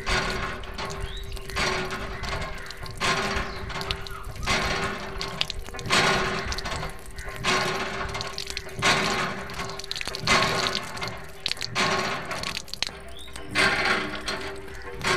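A thin stream of water from a small tube splashing onto a plastic toy backhoe loader and the wet ground, surging in regular pulses about every one and a half seconds over a steady faint hum.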